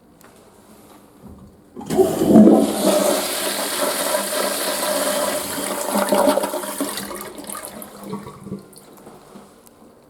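Toilet flushing: a sudden rush of water about two seconds in, running loud for about five seconds and then trailing off.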